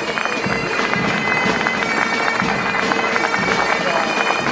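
Bagpipes playing a tune over a steady drone note.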